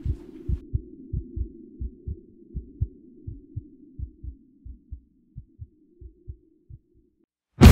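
Heartbeat sound effect over a low drone: paired thumps that slow and fade until they stop, a heart giving out. Loud rock music bursts in at the very end.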